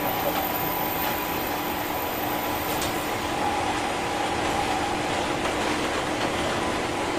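Interior running noise of a JR 201 series electric train, heard from inside a motor car: a steady rolling roar with a faint, steady high whine over it.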